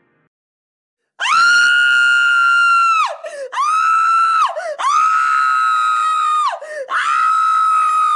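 High-pitched screaming: four long, held screams starting about a second in, each ending in a quick drop in pitch.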